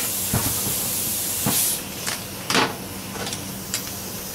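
Metal clinks from a socket and loosened case nuts on a Volkswagen air-cooled engine case, five sharp ones, the loudest about two and a half seconds in. Under them runs a steady hiss that drops in level about two seconds in.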